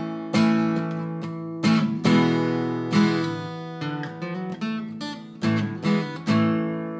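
Acoustic guitar strumming chords in an instrumental break of a song, each strum ringing on until the next.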